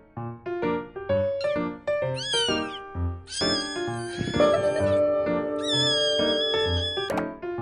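Cat meowing over bouncy background music: a short meow, then a long drawn-out one, then another, as in a cat-meme sound clip.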